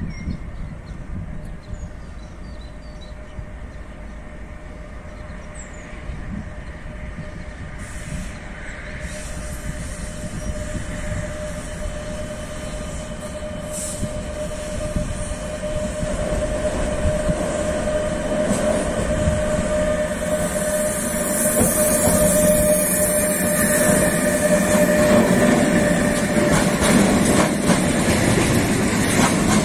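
Electric-hauled freight train of tank wagons approaching and passing close: a rumble that grows steadily louder with a steady whine over it. Near the end the wagons roll past with wheel clatter.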